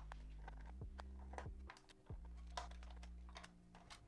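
Faint, scattered light clicks and taps of small Torx screws and plastic circuit-board parts being handled on a towel-covered desk, over a faint low hum.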